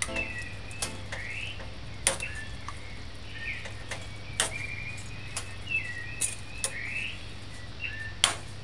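A metal spoon clinking and knocking against a stainless steel saucepan as the stew is turned over, about eight sharp, irregular knocks. Birds chirp in the background over a steady low hum.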